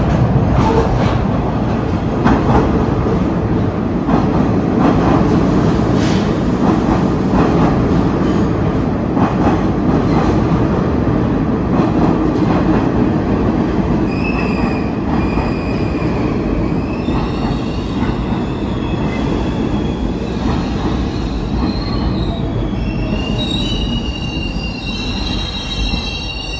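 New York City Subway train rolling into a terminal station, a loud steady rumble with rhythmic clicking over the rail joints. About halfway through, high squeals start, growing stronger and more numerous near the end as the train slows to a stop.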